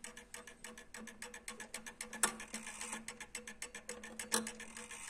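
Junghans W64 mantel clock movement clicking rapidly and evenly, with two louder clicks about two and four seconds in. Its gong rods hum on faintly in the background.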